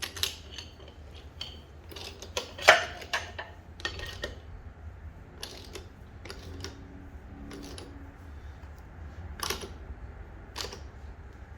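Hand wrench work on steel bolts: irregular metallic clicks and clinks of the tool on the bolts, with one louder clank about two and a half seconds in.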